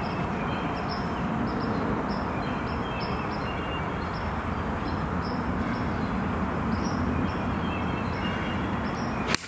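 Birds chirping over a steady low background rumble. Near the end comes a single sharp crack as a 7 iron strikes a golf ball.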